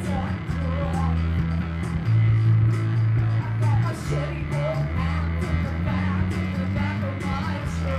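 Live rock band playing: a woman singing over electric bass and keyboard, with long low bass notes and a steady beat.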